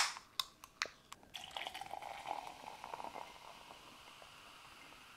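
A cola can's tab popping open with a sharp crack and a short hiss, then a few light clicks. About a second and a half in, the cola is poured into a tall glass, splashing and foaming, and it fades to a soft fizz.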